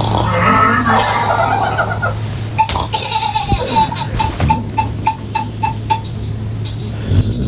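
A small child laughing in a run of short, even giggles, about three a second, through the middle of the stretch.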